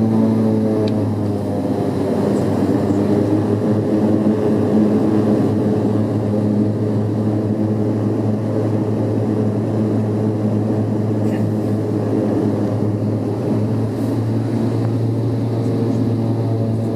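Antonov An-140's twin turboprop engines and propellers running, heard inside the passenger cabin as a steady, loud droning hum with no rise or fall in pitch.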